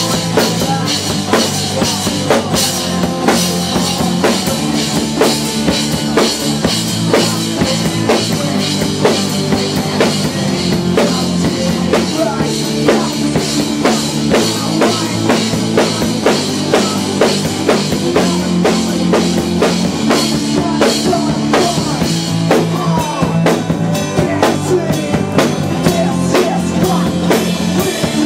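Live band playing loud music: a drum kit beating fast and steadily, with an electric bass guitar holding low notes that change every second or so.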